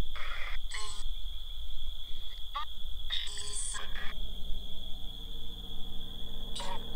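Spirit box sweeping radio stations: short, broken bursts of static and clipped fragments of sound from its speaker, over a steady high insect trill.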